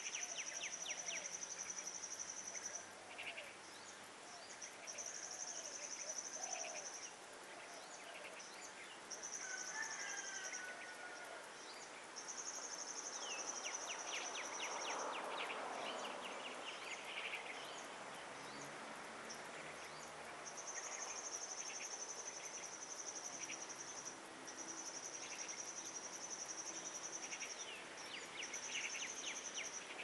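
Insects trilling high and steady in repeated spells of one to three seconds, with short bird chirps scattered between them.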